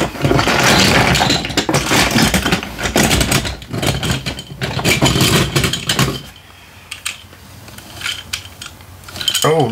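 Small plastic toys clattering and rattling in a cardboard box as a hand rummages through them. It is loud and dense for about six seconds, then settles to a few lighter clicks.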